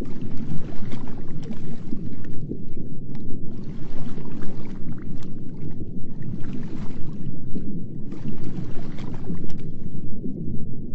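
Underwater ambience: a continuous low rush of moving water that swells and falls unevenly.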